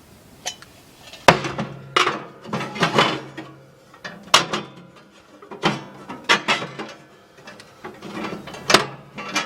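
Metal barbecue parts being handled, fitted and bent into the grill: an irregular series of clanks, knocks and rattles with short metallic ringing.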